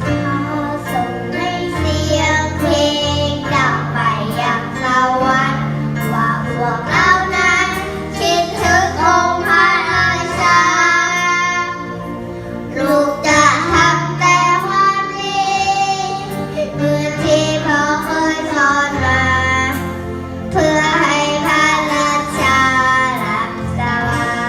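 A high female voice sings a melody over a backing track with held bass notes and a light beat. The voice drops out briefly about halfway through.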